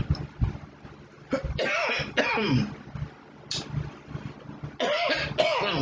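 A woman coughing and clearing her throat in rough bursts while eating: two longer bouts and a short one between them.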